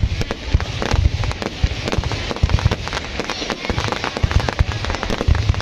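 Aerial fireworks going off overhead: a rapid, irregular run of bangs and crackling pops, with low booms underneath.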